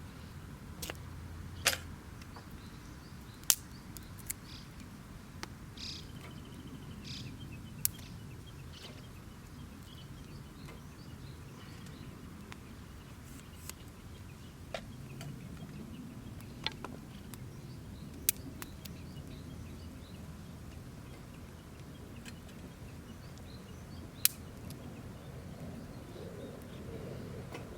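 Wood campfire crackling, with sharp pops at irregular intervals of a second or more. A short bird call comes about six seconds in.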